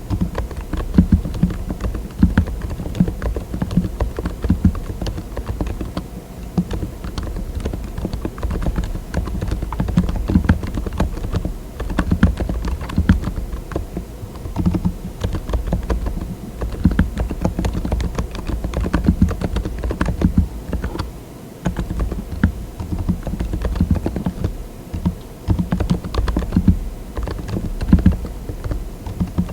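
Continuous typing on a mechanical keyboard fitted with TTC Silent Bluish White tactile switches (42 gf), their dampened keystrokes sounding as a dense run of low, dull clacks. The typing eases off briefly about two-thirds of the way through.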